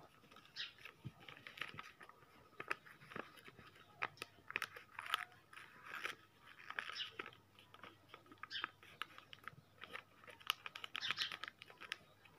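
A sheet of lined paper being folded by hand into a box: irregular crinkling and rustling with short, sharp snaps as the folds are pressed and pushed into shape.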